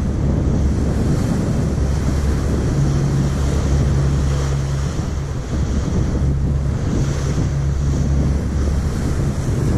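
Ferry underway at sea: a steady low engine drone under the rush of water along the hull, with wind buffeting the microphone.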